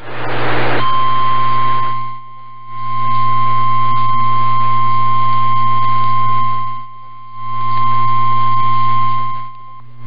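Weather-radio warning alarm tone: one steady high beep, the single 1050 Hz tone that NOAA Weather Radio sounds before a warning message, held about nine seconds. It begins after a short burst of static, over a low hum and hiss from the receiver.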